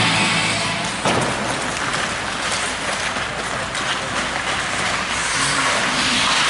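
Ice hockey play on an indoor rink: a sharp stick-and-puck crack about a second in, as the puck is won off a faceoff, then skates scraping the ice and scattered stick clacks over steady rink noise.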